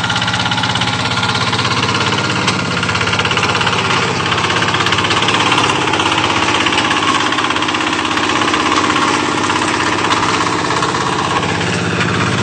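Two-wheel walking tractor's engine running steadily in a flooded paddy, with a fast, even chugging beat.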